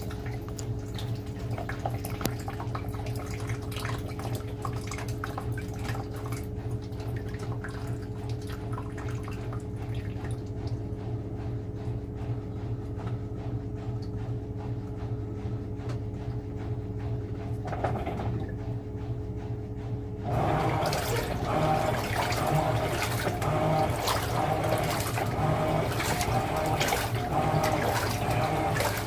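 Electrolux Premium Care 14 kg washing machine washing a load of towels: a steady motor hum with water moving in the tub. About two thirds of the way through it turns louder, with rhythmic sloshing and splashing.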